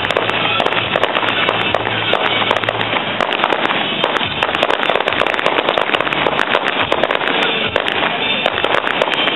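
Fireworks display in full barrage: a dense, unbroken mass of rapid crackling and popping, with no gaps.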